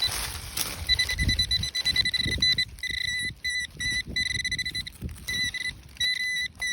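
Metal detector giving a steady high-pitched target tone that cuts in and out repeatedly as the search coil sweeps back and forth over a buried metal object. Soft low thumps sit underneath.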